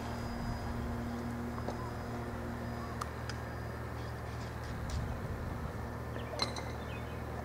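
Faint drone of a small electric RC plane's motor and propeller flying high overhead: a steady hum that fades out about two seconds in, over a steady low rumble, with a few light clicks.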